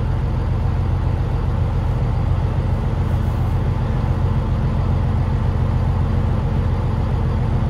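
Boat engine running steadily under way, a low, even drone heard inside the wheelhouse.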